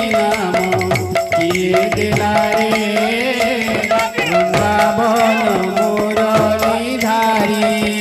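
Odia kirtan music: a two-headed barrel drum played by hand, its bass strokes bending down in pitch, with jingling metal percussion and a melody over a steady drone.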